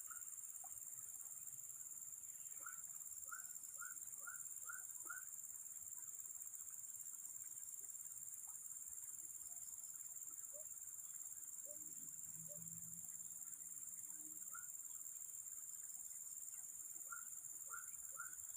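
Faint, steady high-pitched insect chorus, with runs of short chirping calls repeating about two a second, a few seconds in and again near the end.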